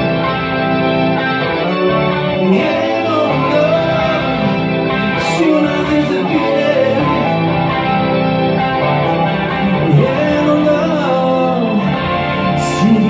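Live rock band playing: electric guitar, electric bass and drums, with a male singer's voice over them.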